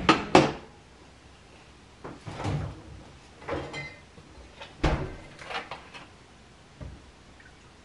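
Kitchen handling sounds: a refrigerator door opened and shut and a plastic milk bottle taken out and handled. They come as a few separate knocks and rustles, the sharpest about five seconds in, with a smaller thump near the end.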